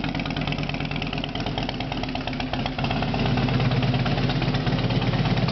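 2006 Harley-Davidson Softail Deluxe trike's fuel-injected Twin Cam 88B V-twin idling steadily through true dual fishtail exhaust pipes, pretty loud, getting a little louder about three seconds in.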